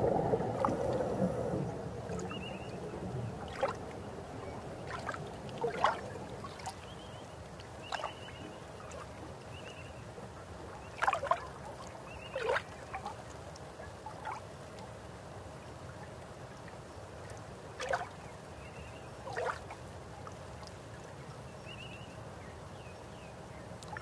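Faint underwater ambience: a steady low rumble and hiss, broken every few seconds by short sweeping chirps, several of them in pairs.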